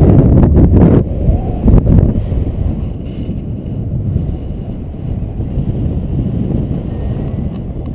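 Wind buffeting the microphone of a camera carried in paragliding flight: a loud, low, rumbling rush of air. It is heaviest for about the first second, then settles lower and steadier.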